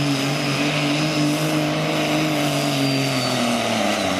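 Diesel pulling truck's engine at full throttle, dragging a weight-transfer sled, running at high rpm with a thin high whistle above it. About three seconds in, its pitch starts to fall as the engine is pulled down under the sled's load.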